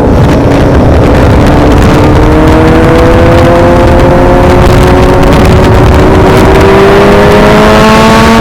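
Motorcycle engine running while under way, its pitch rising slowly and steadily as it accelerates.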